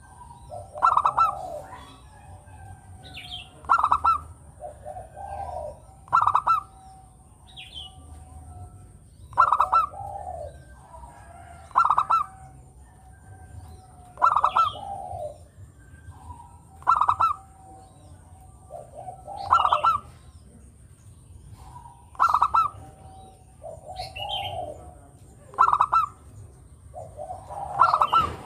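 Local Javanese zebra dove (perkutut) cooing over and over: each phrase a loud clipped note followed by a lower rolling coo, repeated about every two and a half seconds.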